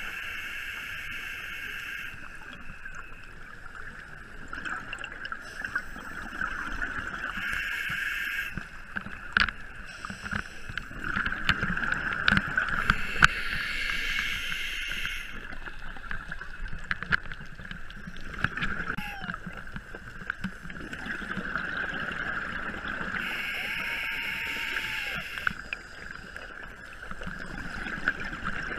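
A scuba diver breathing through a regulator underwater, with four bursts of bubbling exhaust about 6 to 10 seconds apart over a steady underwater hum and scattered bubble clicks.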